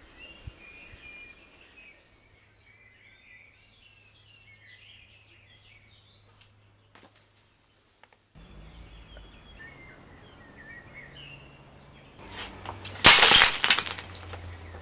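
Faint bird chirping, then about thirteen seconds in a sudden loud crash with a shatter, like breaking glass.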